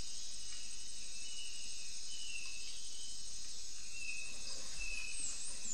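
Outdoor ambience: a steady high-pitched chirring of insects, with a few faint short chirps scattered through it.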